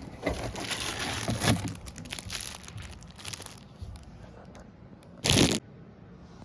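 Packaging being handled and crinkled during unboxing, a dense rustling that dies down after about three seconds, then one short, loud burst of noise about five seconds in.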